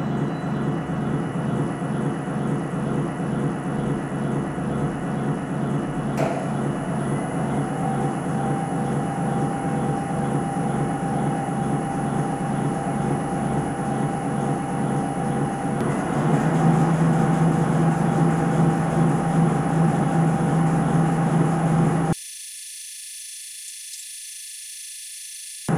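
Two gyroscopic paint-can mixers running, cans tumbling, a steady mechanical whir with a fast regular churn and a click about six seconds in. About sixteen seconds in it gets louder and a steady hum sets in as the mixers run at full speed. Near the end the sound drops to a thin, quieter hiss.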